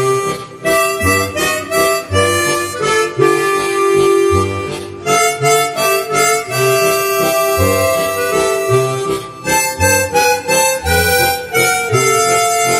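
Several harmonicas playing a tune together, with held chords and melody over a low bass note roughly once a second.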